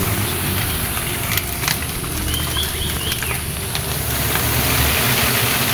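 Steady low drone of a colony of giant honeybees (Apis dorsata) buzzing over their exposed comb as it is smoked, with a brief high chirping about halfway through.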